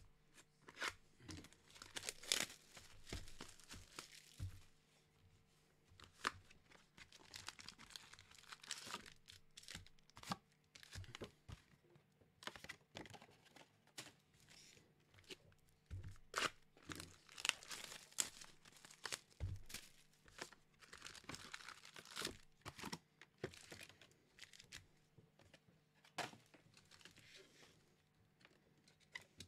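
Pokémon booster boxes being torn open and their foil-wrapped booster packs crinkling as they are lifted out and stacked, in irregular bursts of tearing and rustling with light knocks between.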